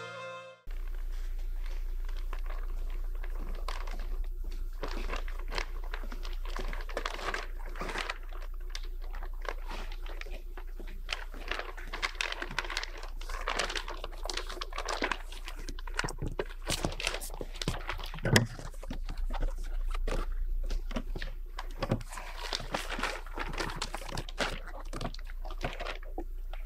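Stage handling noises: a large cloth sheet rustling as it is spread and gathered, with footsteps and knocks on the stage floor and one sharper thump about eighteen seconds in, over a steady low hum.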